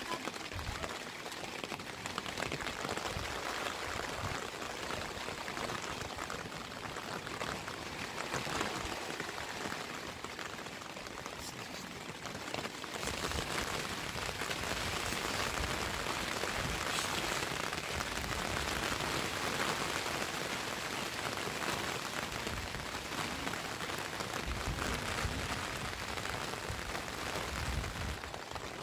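Heavy rain falling steadily in a dense patter, getting a little louder about halfway through.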